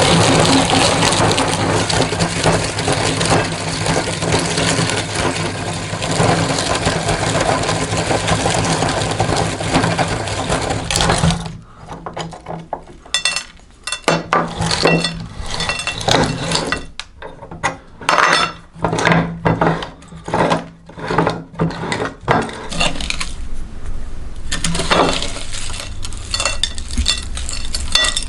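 Electric meat grinder running with a steady motor hum while it crushes hard plastic toy food. After about 11 seconds the steady grinding gives way to a string of separate sharp cracks and clinks of plastic pieces snapping and rattling, with the motor hum coming and going.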